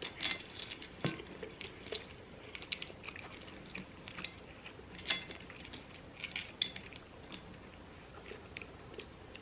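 People chewing and biting food close to the microphone: scattered short, crisp mouth clicks and crunches, with a few small knocks, now and then louder.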